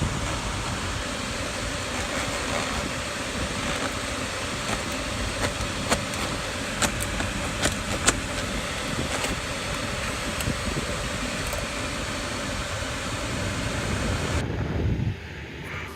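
A 3rd-generation Acura MDX's climate-control blower fan running, pushing air through the dash vents with a steady rush and a faint whine, and scattered sharp clicks. The rush drops off abruptly near the end.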